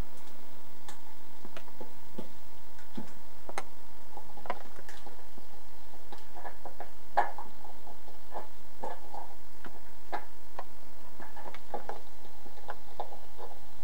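A puppy biting and pushing a clear plastic bottle, making irregular plastic clicks and crackles that come more often in the second half.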